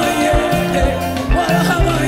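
Live gospel choir singing with a band: a steady kick drum about twice a second and a stepping bass line under the voices.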